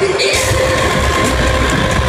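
Live rock band playing loud through a venue PA, picked up on a phone from the crowd. Held tones sit over a dense wash, and a heavy low end comes in about a third of a second in.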